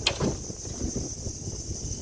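Wind buffeting the microphone with a low, uneven rumble and a steady high hiss, with a couple of short knocks near the start.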